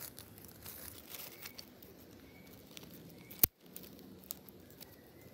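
Faint rustling and crinkling handling noise, with one sharp click about three and a half seconds in.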